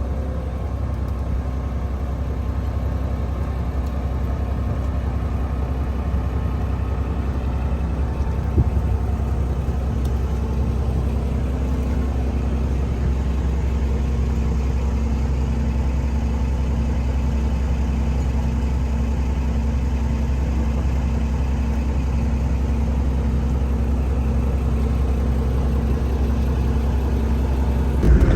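A vehicle engine running steadily with a low, even hum that slowly grows a little louder, with one short knock about eight and a half seconds in.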